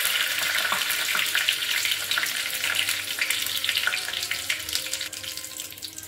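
Curry leaves and cumin seeds sizzling and crackling in hot oil in a small tempering pan, the sizzle slowly dying down.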